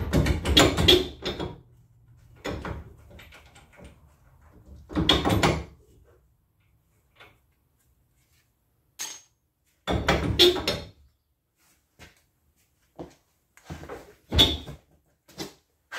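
Metal clunks and rattles from the rear wheel hub of a Ford Mustang being worked loose from the suspension knuckle, in four short bursts a few seconds apart with lighter clicks between.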